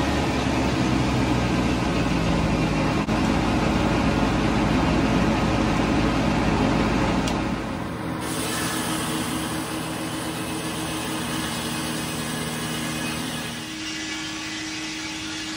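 Frick 00 circular sawmill running under its three-cylinder Detroit Diesel engine: a steady mechanical drone with the spinning blade. About eight seconds in, the sound turns quieter and more hissy.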